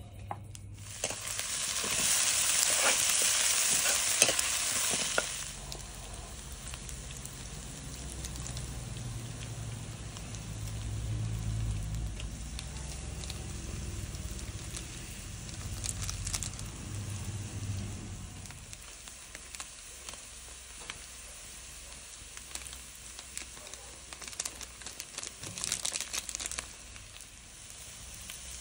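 Food frying in hot oil in a wok over a wood fire. A loud burst of sizzling starts about a second in and drops off after about five seconds, then settles into a steadier, quieter frying with scattered clicks.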